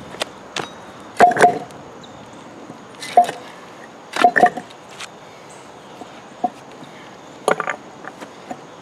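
A cracked concrete slab being shifted by hand on concrete blocks: a series of irregular knocks of concrete on concrete, some in quick pairs.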